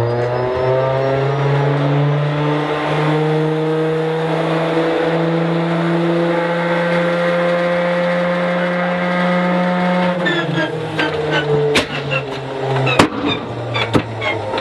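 Stinson L-1's radial engine being cranked on its starter during a failed start: a steady whine that climbs slightly in pitch, then about ten seconds in it drops and the engine turns over with irregular pops and two sharp bangs, without catching. The engine has a long-running problem keeping it from starting, which the crew suspects is something out of time, likely the valve timing.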